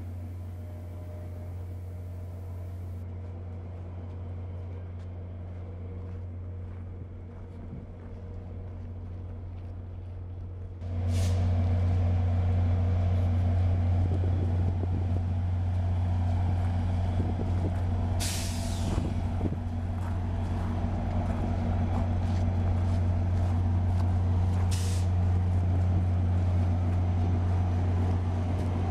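Diesel locomotives of a VIA Rail passenger train standing and running at idle, a steady low hum that suddenly grows louder about a third of the way in. Short hisses of escaping air come three times, typical of a locomotive's air brake system venting.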